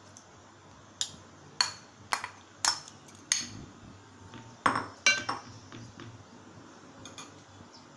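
Steel spoon clinking against metal cookware as chicken gravy is scooped and spread over a layer of rice: a run of sharp, ringing clinks about half a second apart, then a quick cluster of two or three near the middle, fading to faint taps.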